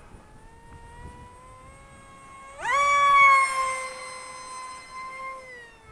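Zeta Z84 flying wing's electric motor and propeller, heard from the ground as a high-pitched whine during a full throttle run on 4S power. The whine jumps up in pitch and loudness about two and a half seconds in, then slowly falls in pitch and fades.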